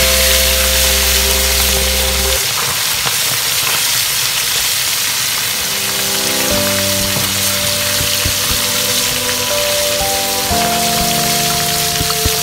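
Safi fish deep-frying in hot oil: a steady, busy sizzle, with background music of held chords over it.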